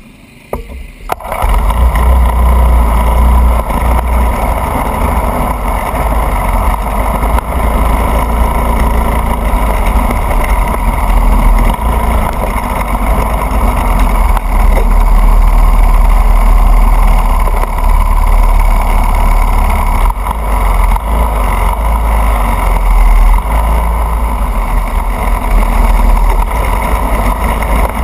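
Racing kart's engine, heard close up through an onboard camera, running loudly from about a second in as the kart gets under way and laps, with heavy wind buffeting on the microphone.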